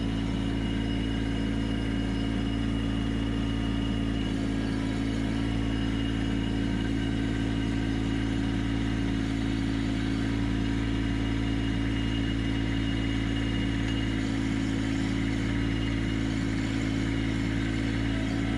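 Kubota LX2610 compact tractor's three-cylinder diesel engine running at a steady speed while its front loader works a root grapple.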